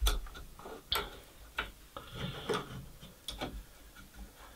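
Scattered light clicks and taps, about half a dozen at irregular intervals, as T5 LED grow light tubes are shifted by hand on a painted wooden frame.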